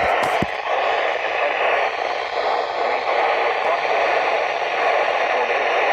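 Radio static: a steady hiss from a weather radio receiver picking up a weak or empty channel, with a couple of clicks near the start.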